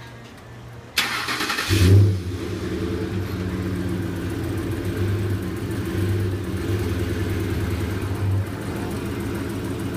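Pickup truck engine starting about a second in, with a short rev as it catches, then idling steadily.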